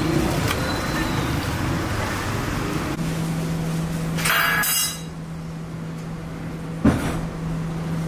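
Water from a hose running and splashing into a steel bowl of lamb heads, then a steady low hum with a brief rushing hiss and one sharp metallic clank near the end.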